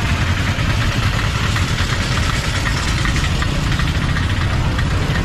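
Idling and slow-running engines of three-wheeler auto-rickshaws and scooters in dense traffic: a steady low engine rumble under a busy background din.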